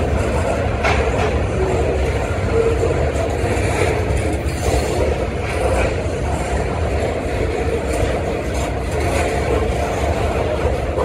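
CSX freight train of container well cars rolling past, a steady rumble of steel wheels on the rails with occasional faint clicks.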